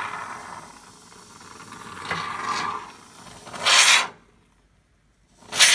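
Can of expanding foam held upside down and sprayed in hissing, spluttering spurts. Two short, loud spurts come about four seconds in and near the end.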